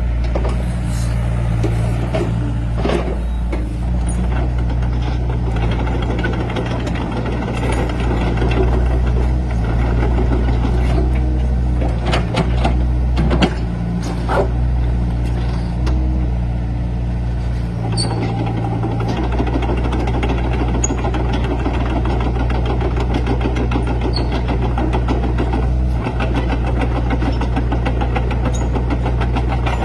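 Excavator's diesel engine running steadily under load, with a few sharp clanks from the digging about 3 seconds in and again around 12 to 13 seconds.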